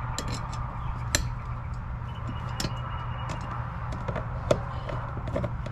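Scattered light clicks and knocks of a metal motor bracket and its screws being handled and fitted onto a kayak hull, with two sharper knocks, one about a second in and one near the end. A steady low rumble runs underneath.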